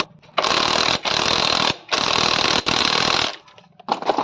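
Impact wrench hammering a nut tight on the motorcycle's clutch, in three bursts of about a second or so each, the first the longest.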